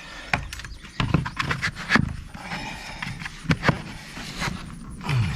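Irregular knocks, clicks and scraping of hard plastic being handled: plastic drainage tile and a plastic bucket being worked by hand.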